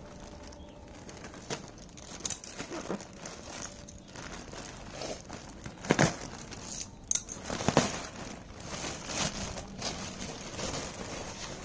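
Thin clear plastic packaging bag crinkling and rustling as hands pull it off a fabric backpack, with a few sharp, louder crackles around the middle.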